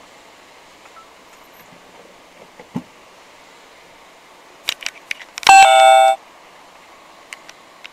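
A car horn gives a single short honk of under a second, about five and a half seconds in, a steady multi-tone blare that cuts off abruptly. A few sharp clicks come just before it, over quiet cabin noise of a car stopped at a pedestrian crossing.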